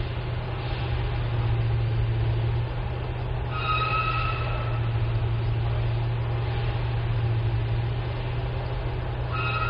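Unexplained night-time grinding noise: a steady low drone under a rough grinding sound, like stones being dug up and ground. A short high squeak cuts in twice, once about four seconds in and again near the end.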